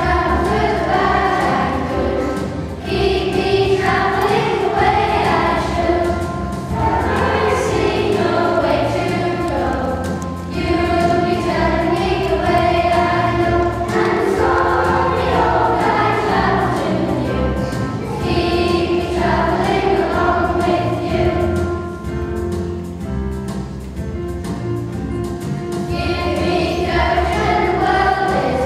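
A group of primary-school children singing a song together as a choir, in phrases with long held notes.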